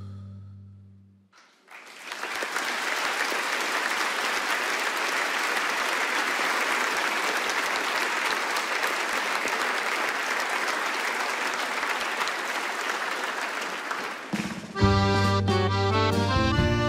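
A held low musical chord fades out in the first second, then a concert audience applauds steadily for about twelve seconds. Near the end, a piano accordion starts playing rhythmic chords.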